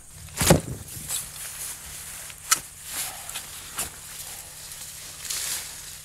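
Rustling and scuffing of someone moving through a potato patch, in irregular bursts: the loudest about half a second in, a sharp snap about two and a half seconds in. A faint steady low hum runs underneath.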